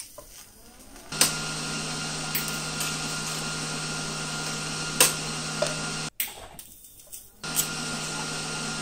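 MIG welder arc running on a steel bracket, a steady sizzle with a low hum and an occasional pop. It runs for about five seconds, cuts off, and strikes up again about a second and a half later for a second bead.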